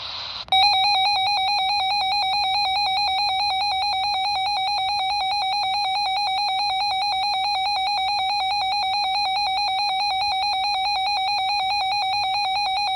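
Emergency alert attention tone on a weather radio broadcast: one loud, steady electronic tone with a rapid flutter, lasting about twelve seconds and starting about half a second in. It announces an incoming severe thunderstorm watch.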